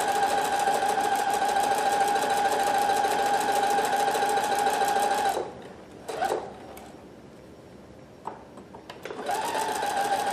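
Husqvarna Viking Platinum Plus sewing machine stitching steadily at a very short stitch length, sewing back and forth over a tear to mend it. It stops about halfway, gives a short blip and a click in the pause, then starts up again near the end.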